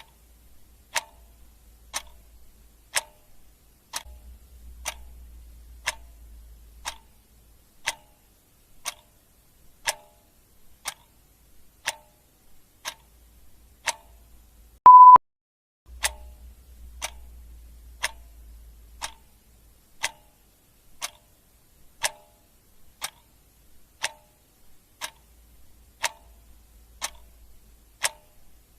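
Clock ticking, one sharp tick a second. About halfway through, one tick is replaced by a short, loud single-pitch beep.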